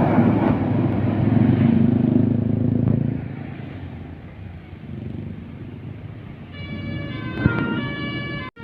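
Engine and road noise of a bus, loud for the first three seconds and then fading. About six and a half seconds in, a 'telolet' multi-tone bus horn starts playing a tune of steady notes that step from one pitch to another, then stops abruptly near the end.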